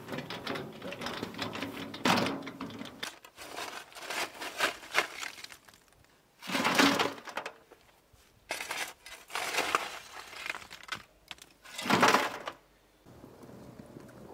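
A steel shovel scooping up broken brick rubble: about five separate scoops a couple of seconds apart, each a loud gritty scrape of the blade into the pile.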